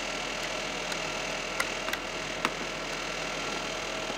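Steady room hum and hiss, with a few light clicks about half a second to two and a half seconds in.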